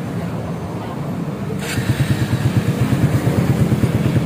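Kawasaki W175's single-cylinder four-stroke engine starting about one and a half seconds in, then idling with an even exhaust beat through an aftermarket full-system exhaust, louder than the low engine hum before it.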